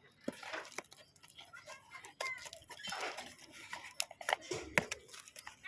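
Scattered sharp clicks and scrapes of a parcel's packaging being handled and opened, with faint voices in between.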